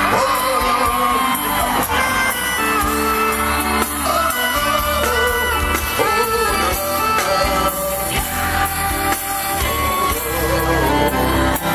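Live gospel band music with singing, loud and continuous.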